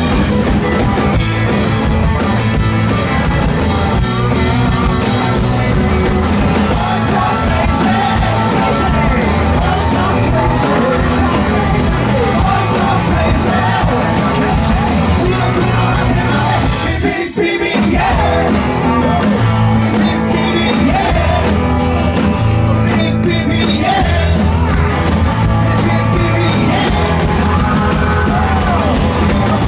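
Live rock and roll band playing: electric guitar and drum kit with singing. The band drops out for a moment about seventeen seconds in, then comes straight back in.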